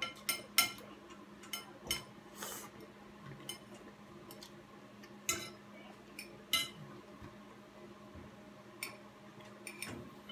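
Child's plastic training chopsticks clicking and tapping against a plate while picking up noodles, in scattered, irregular sharp clicks.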